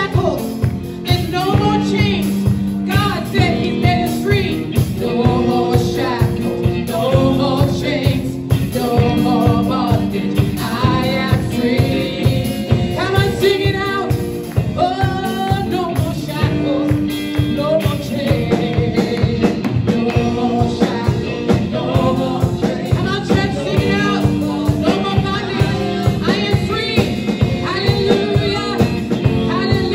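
Live worship song: a woman sings the lead over a band of electric guitar and drums keeping a steady beat.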